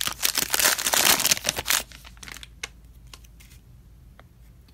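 Plastic wrapper of a trading-card fat pack crinkling as it is torn open and the cards are slid out, for about the first two seconds. After that it goes much quieter, with a few faint ticks as the stack of cards is handled.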